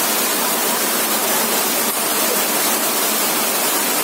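River water rushing over rocks, a steady, even rush with no breaks.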